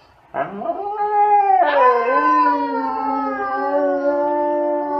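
A Siberian husky and a woman howling together. A rising howl starts just after the beginning, and from about two seconds in one long, steady howl is held.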